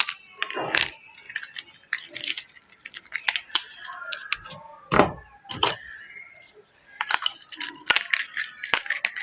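Small hard objects handled close to the microphone: an irregular run of clicks, taps and clinks, some with short ringing tones, and one louder knock about halfway through.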